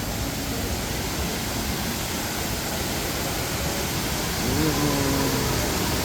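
Steady rushing of water from an artificial waterfall, a constant even roar. A voice sounds briefly about halfway through.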